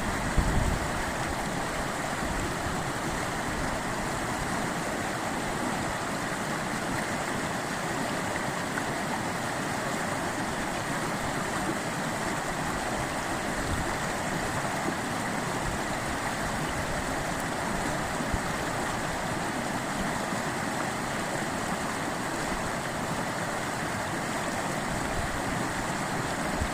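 River water flowing in a steady, even rush, with a brief low bump of wind or handling on the microphone at the very start.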